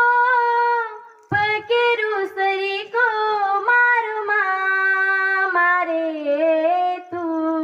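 A young woman singing a Gor Banjara (Gormati) folk song into a microphone, unaccompanied, holding long wavering notes, with a short pause for breath about a second in.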